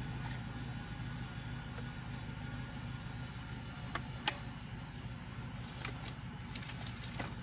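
Chevy 5.3L V8 idling steadily, heard from the cab. A couple of light clicks come about four seconds in.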